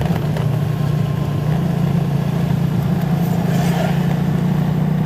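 Steady low drone of a vehicle's engine with road noise, heard from inside the cabin while driving.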